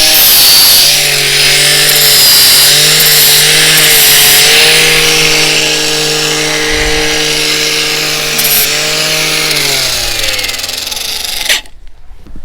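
Parkside PWSAP 20-Li C3 brushless cordless angle grinder running at speed with its disc grinding into a workpiece: a loud, high hiss over a steady motor whine. Near the end the motor pitch falls and the sound stops abruptly.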